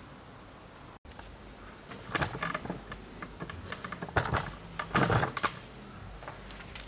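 Metal hand tools clinking and clattering in short bursts of rapid clicks, three times: about two, four and five seconds in.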